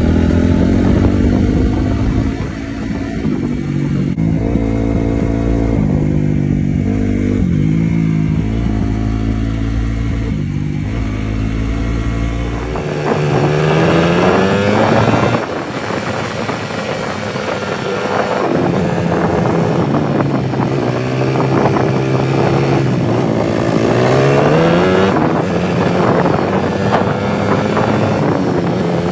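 Dirt bike engine running while being ridden, its pitch climbing and dropping again and again as the rider accelerates and shifts gears.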